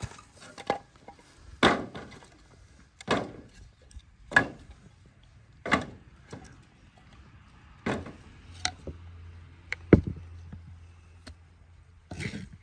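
A series of hard chopping strikes, about one every one and a half seconds, then a few quicker, lighter knocks near the end.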